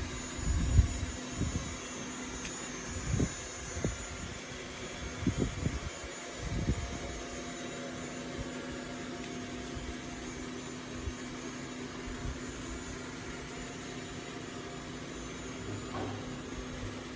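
Dreame L10S Ultra robot vacuum running: a steady motor and fan hum, with several low thumps in the first seven seconds or so.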